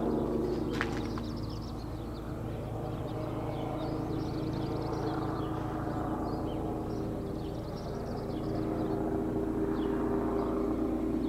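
Air-ambulance helicopter circling overhead: a steady drone of rotor and turbine with several held tones, dipping a little, then growing louder over the last few seconds as it comes nearer.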